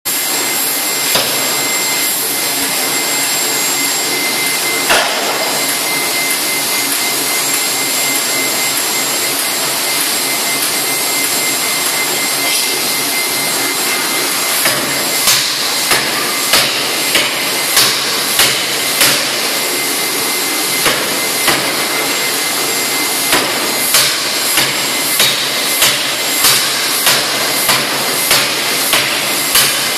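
C41 series pneumatic forging hammer running with a steady loud air rush from its built-in compressor, its ram striking a red-hot bar being drawn out. Two single blows land in the first few seconds; from about halfway the blows come evenly at about one and a half a second, with a couple of short pauses.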